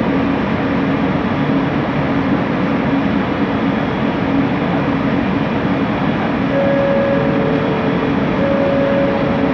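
Running noise of a Bombardier Innovia ART 200 train underway: a steady rumble with a low hum from its linear induction motors. About six and a half seconds in, higher steady motor tones join the hum.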